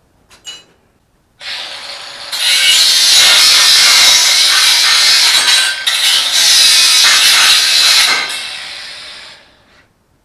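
Ryobi 18V cordless angle grinder with a cutting wheel starting up, then cutting with a loud, harsh high-pitched grinding noise, briefly easing once midway, before the wheel comes off the work and spins down.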